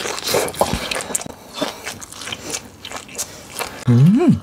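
Crunchy bites and chewing of deep-fried breaded pork cutlet, with many short crisp crackles. Near the end, the loudest moment is a short voiced sound that rises and then falls in pitch.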